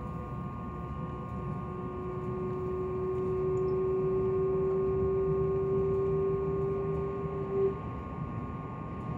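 Meitetsu 2000-series μSKY electric train running, heard from inside: a steady low rumble with constant electric whines, one of which swells about a second and a half in, holds one pitch, and cuts off about a second and a half before the end.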